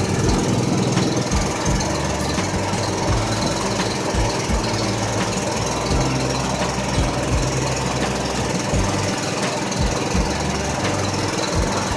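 A small tourist boat's engine running steadily underway, with irregular low thumps throughout.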